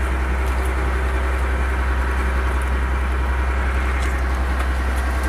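Fishing boat's engine running steadily, a constant low drone, with a few faint ticks from the catch being handled.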